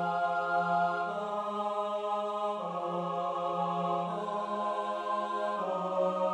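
Four-part choral anthem in slow block chords. Each chord is held steadily and moves to the next about every one and a half seconds.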